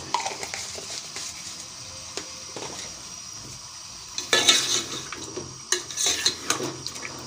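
Chicken pieces frying in oil with garlic-ginger paste and spices in a metal pot, sizzling, while a metal ladle stirs and scrapes against the pot. From about four seconds in the stirring gets louder, with several scraping strokes.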